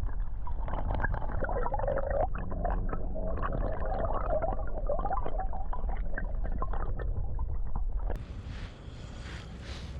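Muffled water gurgling and sloshing with the high end cut off, as if picked up through a submerged or covered microphone. It stops abruptly about 8 seconds in, giving way to a quieter open creek ambience.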